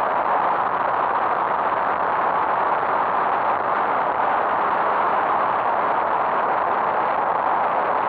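Steady rushing wind and road noise picked up by a camera on a motorcycle riding at speed, with no distinct engine note standing out.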